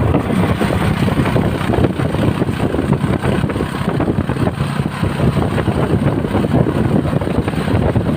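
A moving road vehicle's engine and road noise: a loud, steady rumble that fluctuates rapidly and carries no clear tone.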